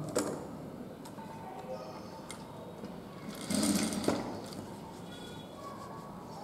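Industrial sewing machine stitching in one short burst of under a second, about three and a half seconds in, ending in a sharp click. A few lighter clicks from handling the machine and fabric come before it.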